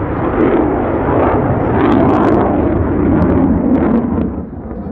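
An RCAF CF-18 Hornet fighter's twin General Electric F404 turbofan engines sound in flight overhead as a loud, rough rumble with occasional crackle. The noise drops off about four seconds in as the jet climbs away.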